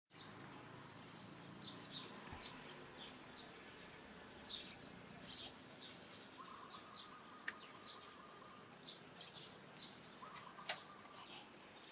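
Faint, high, short bird chirps repeating irregularly, with two sharp clicks in the second half.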